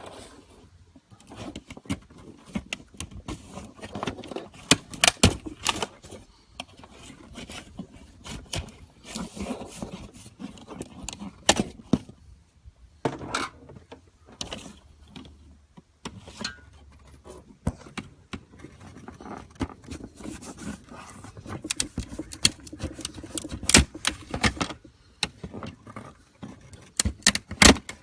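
Irregular clicks, knocks and scraping from hand work on a car's hood vent area, with tools and parts being handled.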